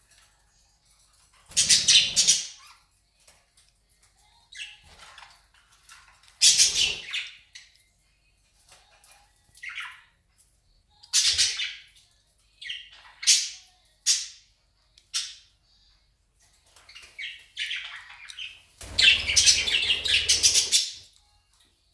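Budgies chirping and squawking in short bursts of chatter, separated by pauses, with the longest and loudest burst near the end.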